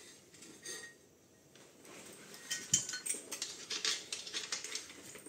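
Light clinking and clattering of a metal rebreather travel frame and its fittings being handled and pushed into place, a quick run of small knocks in the second half.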